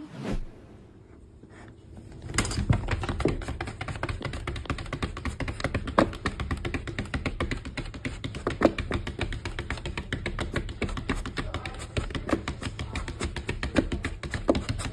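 Rapid, irregular clicking and tapping, many strokes a second, starting about two seconds in and keeping on.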